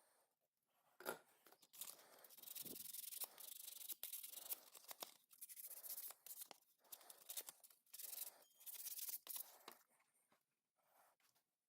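Faint, irregular rubbing strokes of an abrasive scuffing a pocket knife's small shield, roughing it up and cleaning off gunk so glue will stick. The strokes start about a second in and stop near the end.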